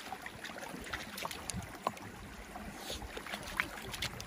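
Shallow river water sloshing over a stony bed, with scattered small clicks and knocks of stones moving.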